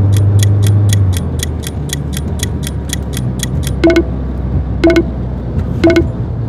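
Quiz timer sound effect: even, clock-like ticking at about five ticks a second. About three and a half seconds in it stops and three short wrong-answer tones follow, a second apart, each marking a wrong choice. A low car-engine sound runs underneath and drops after about a second.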